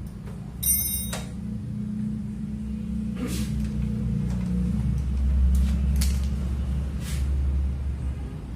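Metal parts of a cup-sealing machine being handled during disassembly: a ringing metal clink about half a second in, then scattered clicks and knocks over a steady low rumble.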